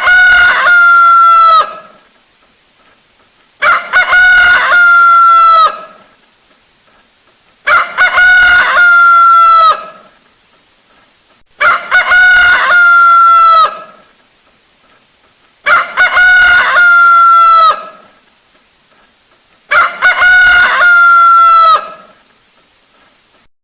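Rooster crowing: the same cock-a-doodle-doo, about two seconds long, repeated about every four seconds, six times, each a few short notes followed by a long held note that drops slightly at the end.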